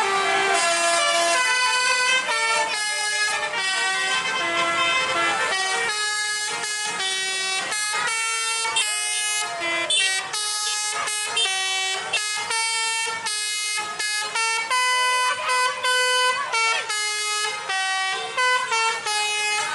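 Tour buses' telolet basuri horns, multi-tone air horns playing quick tunes of short notes that step up and down in pitch. The buses answer one another with hardly a break, so the tunes overlap at times.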